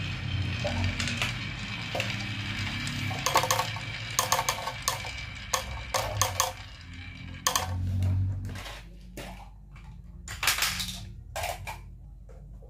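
Small marbles rolling down a wavy groove carved in a wooden plank: a low rolling rumble with many rapid clicks and clatters as they knock against the wood, each other and a clear plastic jar they drop into. The clicking thins out to a few scattered knocks over the last few seconds.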